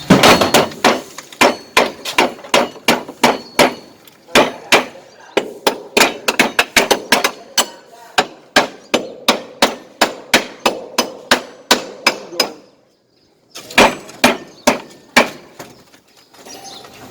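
Hammer driving nails with rapid, steady strikes, about three a second. The strikes stop for about a second, then resume.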